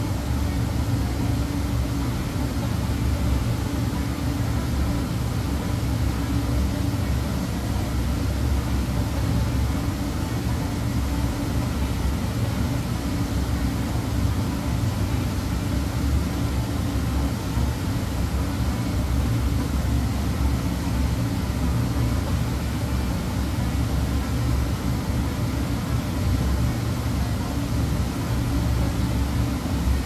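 Steady low rumble and hum of running commercial kitchen machinery.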